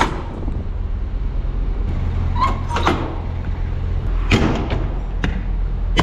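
Rear door and locking-bar gear of a Chereau refrigerated trailer being shut and latched: a few separate metal clanks and clicks, the loudest knock about four seconds in, over a steady low hum.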